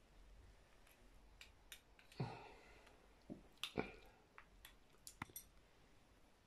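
Near silence broken by faint, scattered clicks and light knocks of small hard objects being handled, about a dozen of them, the loudest around two and four seconds in.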